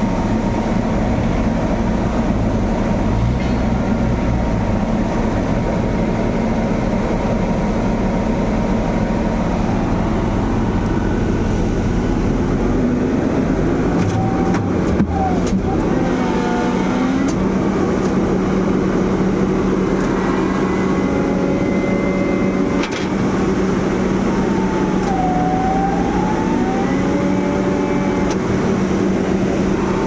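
Diesel engine of a Sany concrete pump running steadily, with a few short clicks or knocks about halfway through.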